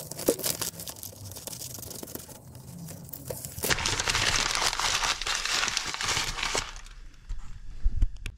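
Paper crinkling and rustling as it is handled, then a louder continuous rustling scrape for about three seconds from around the middle, and a few knocks near the end.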